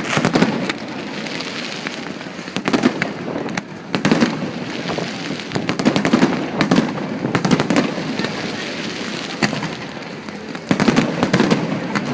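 Fireworks display going off: a rapid run of sharp bangs and crackles, coming in dense flurries about a second in, around four seconds, from about six to eight seconds, and near the end, with a steady rumbling haze between them.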